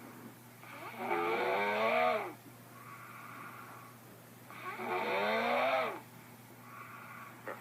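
A person snoring really loud: two long snores about four seconds apart, each rising and falling in pitch, with softer breaths between them.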